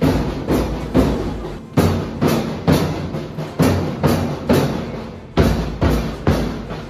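School marching band's drums beating a march cadence, sharp bass-heavy strikes about two a second with an occasional skipped beat.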